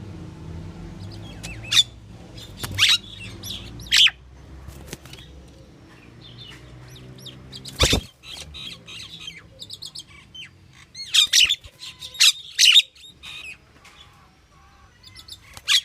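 Pied myna (Asian pied starling) calling in short bursts, several clusters of calls with quieter gaps between them. A steady low hum runs under the first half, and a sharp click comes about eight seconds in.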